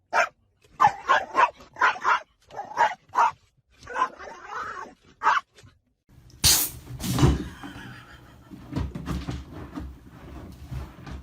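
A dog barking and yipping in a quick series of short calls, about a dozen in five seconds. After a brief silence, a couple of loud knocks or clatters follow, then scattered rustling and knocking.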